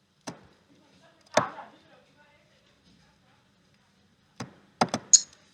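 Sharp snapping clicks of virtual LEGO Technic parts being connected in LEGO Digital Designer. There are two single clicks about a second apart, then a quick run of four near the end.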